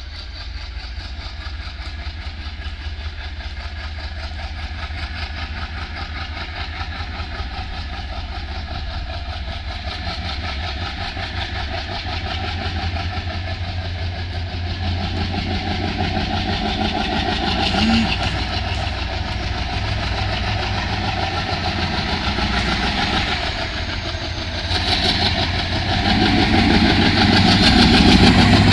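ALCO diesel-electric locomotive working hard under heavy throttle while hauling a passenger train. Its rhythmic engine throb grows steadily louder as it approaches, with a further jump in loudness about 25 seconds in. The heavy black exhaust marks the engine being worked hard.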